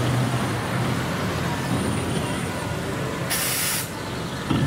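A vehicle engine running with a steady low hum, and a short burst of hissing air about three and a half seconds in.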